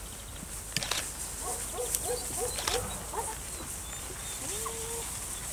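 A young herding dog whining and yipping: a quick run of short, high yelps at about two or three a second, then one longer drawn-out whine near the end.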